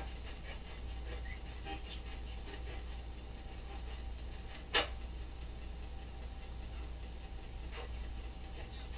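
Quiet room tone: a steady low hum and faint hiss, broken by one sharp click about halfway through and a fainter click near the end.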